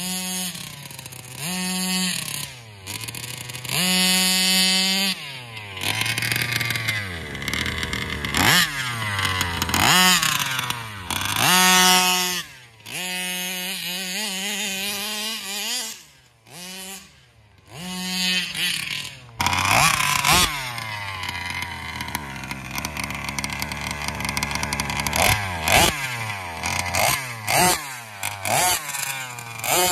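Meyer-ported 32cc two-stroke engine of a Rovan 1/5-scale RC buggy, fitted with a Taylor RC side pipe and a Roostertail 990 carburetor, revving up and dropping back again and again as the buggy is driven in bursts. The sound goes almost quiet for about a second just past the middle. The carburetor's low-speed needle has just been leaned a little.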